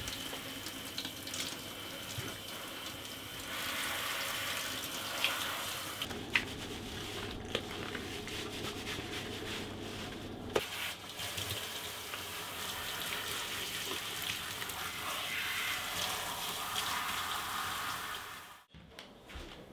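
Handheld shower head spraying water onto a small dog's coat and the shower floor: a steady hiss of running water, with a few small knocks.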